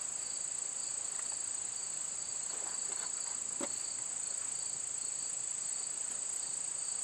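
Insects chirring steadily in a high, even drone, with a lower pulsing buzz beneath it. A few faint clicks come around the middle.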